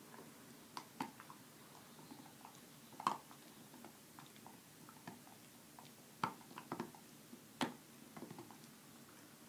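A Samoyed gnawing on a bone: faint, irregular crunches and clicks, scattered unevenly, the sharpest about three seconds in and again a few seconds later.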